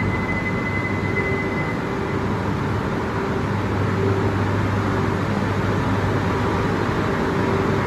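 Steady low hum and rumble of a train standing at a station platform, with no change in pitch. A faint high tone fades out about two seconds in.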